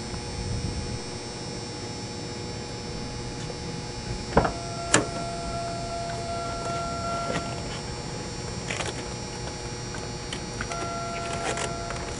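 Someone getting into a car: two sharp knocks a little over four seconds in, then a car's two-tone warning chime sounding for a few seconds, and again near the end, over a steady hum.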